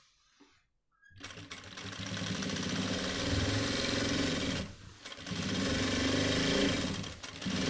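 Jack industrial sewing machine stitching along the edge of a shirt, in two runs of a few seconds each with a brief stop between and a third starting near the end.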